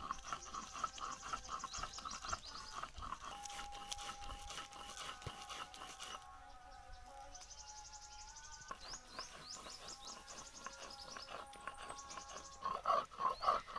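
Animal calls: fast, high trilling calls and long, steady whining notes, over scattered clicks and scrapes.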